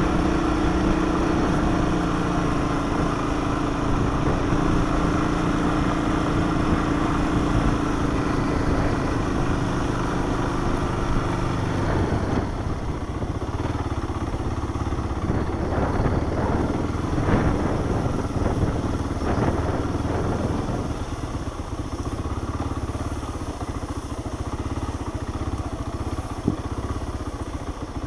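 Honda four-wheeler's engine running as it is ridden, with a steady note. About twelve seconds in the note drops and turns uneven with scattered knocks and rattles, and it runs quieter over the last several seconds.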